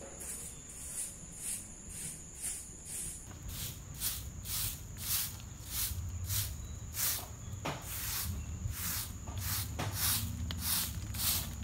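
Broom swishing in repeated strokes across a wet dirt path, about two strokes a second, growing louder after a few seconds.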